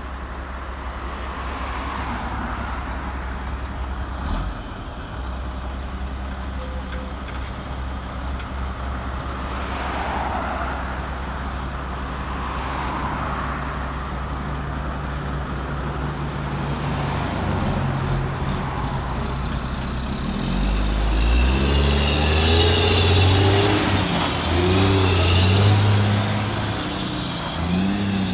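Mack Granite dump truck's diesel engine idling with a steady low rumble, then pulling away. Its pitch rises twice as it accelerates, dropping back once between as it shifts gear, with a high whine rising and falling over it; it is loudest in the last third.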